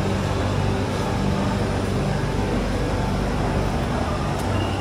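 Busy BTS Skytrain platform ambience: a steady low hum and rumble under a wash of crowd and machinery noise. A steady high tone starts near the end.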